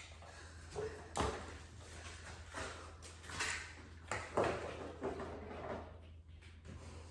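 A few light knocks and bumps at irregular intervals, the strongest around the middle, with a quiet room in between.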